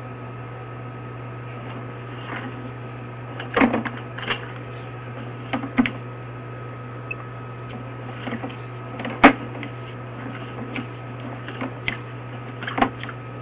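Steady electrical hum from a sewer inspection camera system, with scattered knocks and clicks as the camera head is pushed along a drain pipe; the loudest knock comes about nine seconds in.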